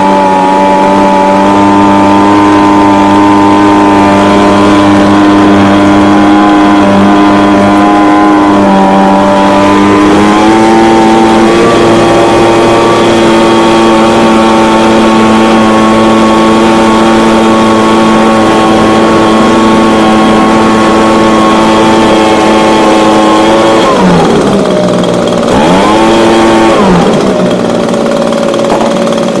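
Echo ES-250 shredder vac's small two-stroke engine running steadily; about ten seconds in its speed steps up a little as the carburetor is adjusted to raise the RPMs. Near the end the engine speed sags, surges briefly and settles lower.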